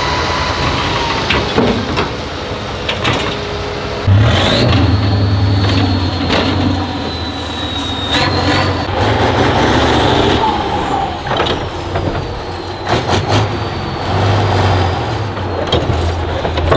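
Heavy off-road racing truck's diesel engine running hard under load, growing louder and heavier about four seconds in, with several sharp knocks and bangs from the truck working over rough ground.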